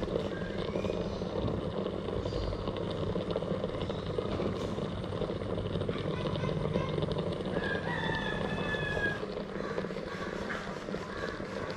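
Electric steam vaporizer running with its water heated to steam: a steady low hum that drops a little about nine seconds in. Birds call in the background, one longer call about eight seconds in.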